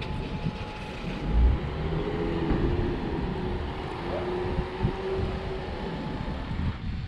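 Outdoor street ambience with a motor vehicle's engine running: a steady noisy background, with a pitched engine hum that comes in about two seconds in and fades near the end.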